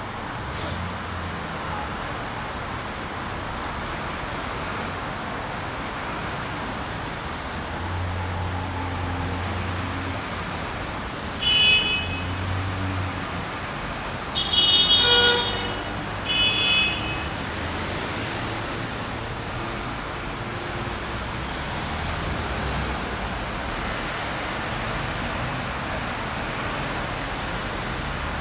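Steady street traffic noise with passing vehicles, and a car horn honking three times in the middle: a short toot, a longer honk, then another short toot.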